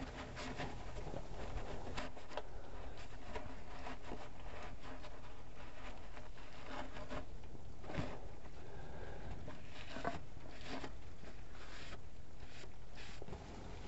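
Cloth shop rag wiping and rubbing inside an open rear differential housing and along its bare metal gasket flange: soft, irregular scrubbing strokes over a steady low background hum.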